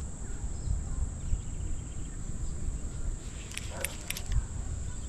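Low wind rumble on the microphone with a steady high-pitched insect drone over it, and a few faint clicks a little before the end.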